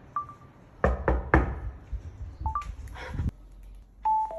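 Short electronic beeps like phone key tones, and three quick sharp knocks about a second in, with a few more knocks about three seconds in. A two-note falling beep comes near the end.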